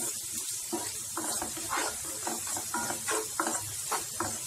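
Sliced onions, green chillies and curry leaves sizzling in hot oil in a non-stick frying pan, with a wooden spatula stirring and scraping through them in repeated strokes, about two or three a second. The onions are being fried toward brown.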